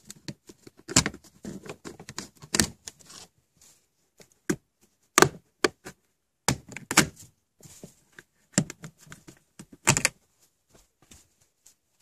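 Plastic seat-rail bolt covers being pried and popped off with a plastic panel tool: a string of irregular sharp clicks and snaps.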